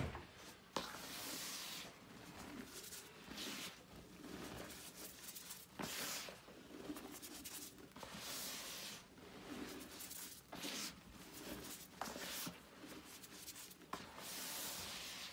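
Hands pressing and sweeping through loose powdered gym chalk in a plastic bucket: soft, gritty swishes that come every second or two, with a few faint clicks between them.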